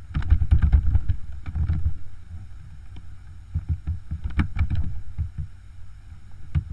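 Computer keyboard typing: a quick run of keystrokes in the first two seconds, another from about three and a half to five seconds in, and a single key tap near the end.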